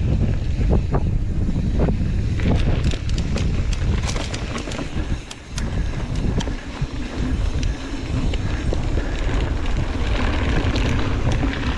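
Wind buffeting the microphone of a camera on a mountain bike riding a dirt singletrack, with the tyres rolling over gravel and frequent sharp clicks and rattles from the bike. The wind rumble drops briefly about halfway through.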